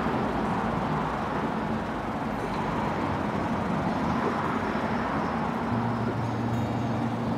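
Steady outdoor road-traffic noise, an even rushing rumble with no distinct events. About six seconds in, low steady tones join it as background music comes in.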